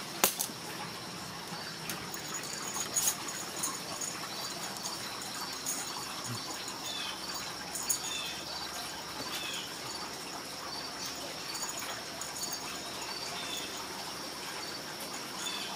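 Steady outdoor insect chorus: a high continuous trill with a regular chirp repeating a bit less than twice a second, and a few bird chirps in the middle and near the end. A few brief soft knocks are heard, the loudest just after the start.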